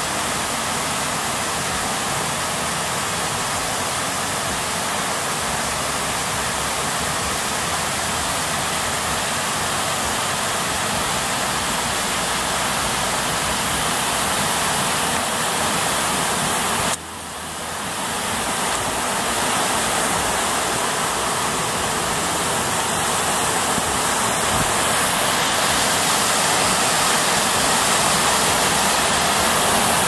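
Steady rush of a mountain stream's falling water, a dense even hiss. Just past halfway it drops suddenly for a moment, then builds back and grows a little louder toward the end.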